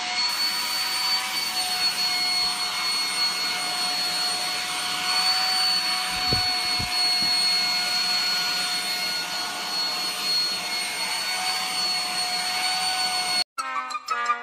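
Vacuum cleaner running steadily, a high whine over a rush of suction air, its nozzle worked over a cat's fur. The motor sound cuts off suddenly near the end.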